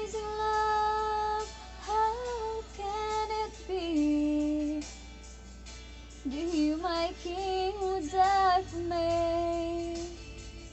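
A woman's voice singing a slow melody in long held notes, with a break about five seconds in; the singing stops near the end.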